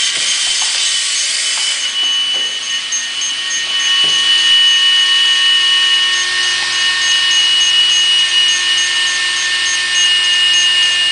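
Mini RC wall-climbing car's suction fan running at a steady high-pitched whir, holding the toy to the wall.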